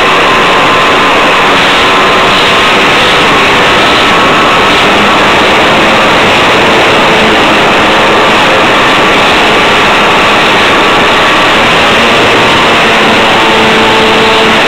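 Steady loud rushing noise with faint whining tones that drift slightly in pitch: wind and the motor and propeller of a Freely model airplane in flight, heard through a camera riding on the plane.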